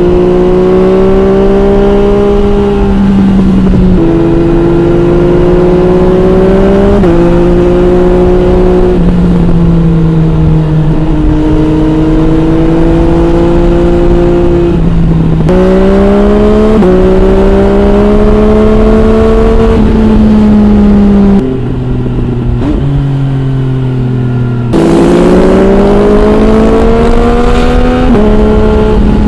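MV Agusta Brutale 800 RR's inline three-cylinder engine through an MV Agusta Corse trio exhaust with dB killer fitted, ridden hard: the engine note climbs in pitch again and again, broken by steps at gear changes. A little past three-quarters through it drops to a lower, quieter off-throttle note, then climbs once more.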